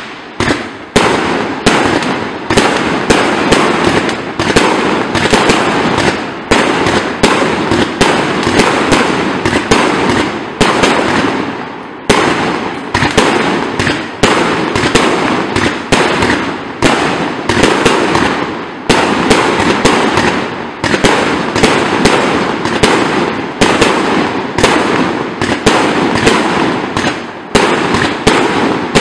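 Hallmark 'Power House' 200-shot firework cake firing shot after shot in rapid succession: a dense, loud stream of bangs, several a second, with barely a break.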